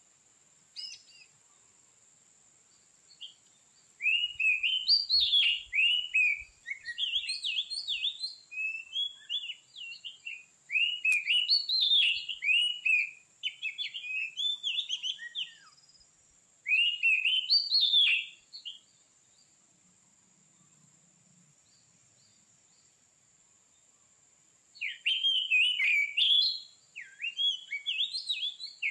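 Oriental magpie-robin (kacer) singing: loud runs of quick, varied whistled phrases rising and falling in pitch, full of copied notes, broken by pauses of a few seconds.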